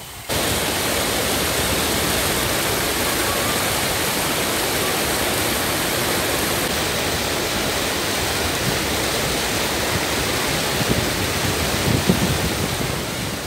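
Water pouring over a low concrete weir and churning white in the pool below: a steady, loud rush that starts abruptly a moment in.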